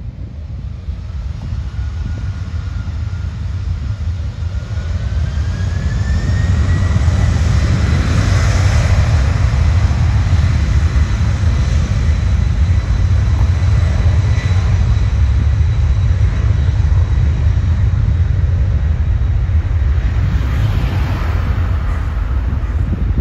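Jet airliner's engines spooling up to takeoff power: a thin whine rises in pitch over the first several seconds while the sound grows louder. It then settles into a loud, steady low rumble as the aircraft accelerates down the runway on its takeoff roll.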